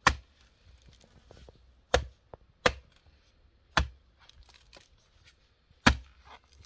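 Five sharp chopping strikes at uneven intervals, each a single hard hit.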